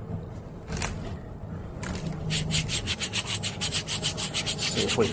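A hand rubbing quickly back and forth over a grimy, rusted data plate on an old in-ground car lift, trying to scrub the dirt off so the plate can be read. The rapid, even strokes start about two seconds in.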